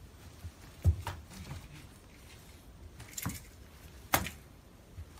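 A few separate soft thuds and light knocks, the strongest a low thud about a second in, from a pop-up fabric cat tube being handled and set down on a wooden floor.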